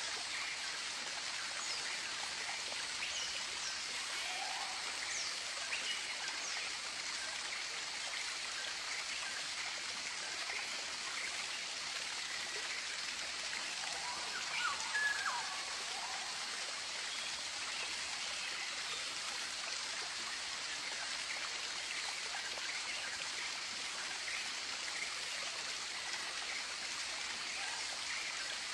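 Tropical forest ambience: a steady hiss of running water under scattered short bird chirps and calls. A brief cluster of louder calls comes about halfway through.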